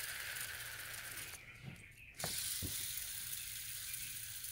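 A fidget spinner spinning right at the microphone, its bearing making a steady whirring rattle. The whir breaks off briefly about a second and a half in, with a few handling knocks.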